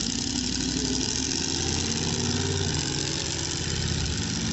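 Monster truck's engine idling steadily under a constant loud hiss.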